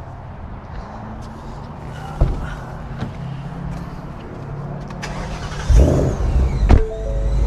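A couple of sharp thumps, then the Mustang Mach 1's built Coyote V8 starting about six seconds in and settling into a deep, steady idle.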